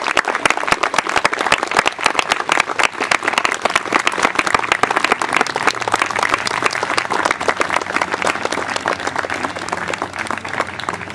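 A crowd of guests applauding with dense, continuous clapping that thins out and grows quieter near the end.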